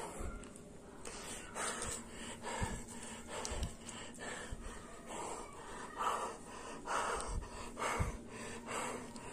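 Close breathing of the person holding the phone, a breath about every second, with a few faint low thumps.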